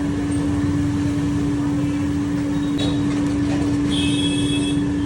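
A machine running steadily with a constant hum and low rumble. A brief high-pitched sound comes about four seconds in.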